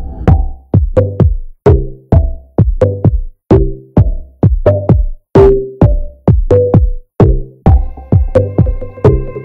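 Background music: an electronic track with a steady drum-machine beat, about two beats a second, with held synth notes coming in near the end.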